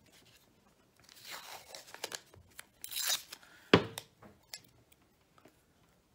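Blue masking tape pulled off the roll and torn, in two short pulls, followed a little under four seconds in by one sharp click, the loudest sound, and a few faint ticks as the wires are handled.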